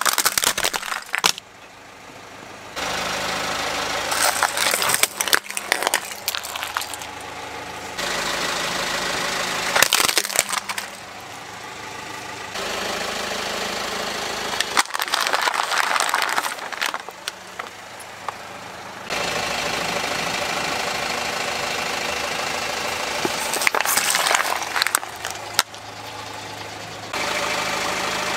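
A car's tyre rolling slowly over plastic toy trucks and other objects and crushing them, with sharp cracks and crunches over the steady running of the car's engine. Several short clips follow one another, so the engine sound jumps in level at each cut.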